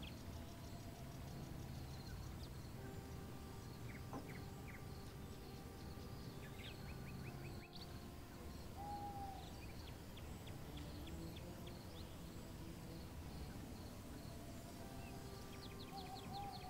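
Wild birds chirping in short quick series, with a brief held whistle about nine seconds in and again near the end, over a steady low background rumble.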